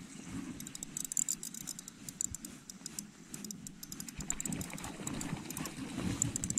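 Daiwa Exist 2000 spinning reel being cranked to bring in line, with runs of fine, quick clicks and rattles over a low steady rumble.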